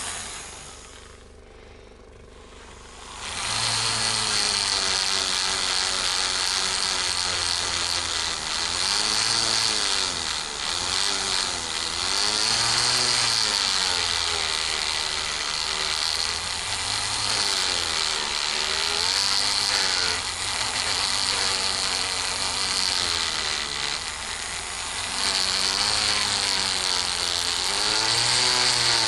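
Rotary tool with a flexible-shaft handpiece running an abrasive polishing wheel against a stabilized-wood knife handle. The tool stops briefly and starts again about three seconds in. Its high whine wavers up and down in pitch as the wheel is pressed onto the wood and eased off.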